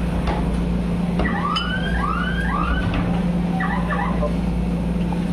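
Steady low machine hum, with three quick rising-and-falling siren-like wails about a second in, and a few light knocks.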